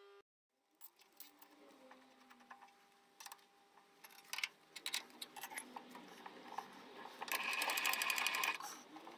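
Light metal clicks and knocks as a steel bush is handled and set in a machine vice. Near the end comes about a second of rapid, evenly repeating mechanical clatter.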